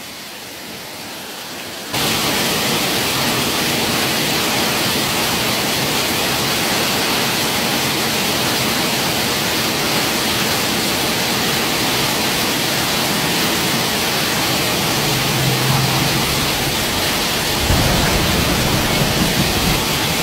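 Heavy rain pouring onto a flooded street, a steady hiss that jumps much louder about two seconds in. A short low hum sounds about three-quarters of the way through, and a low rumble comes near the end.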